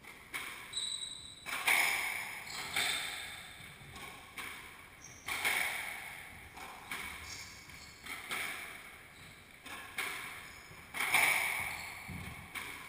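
Squash rally: the rubber ball struck by rackets and smacking off the court walls about once a second, each hit sharp and ringing on in the enclosed court.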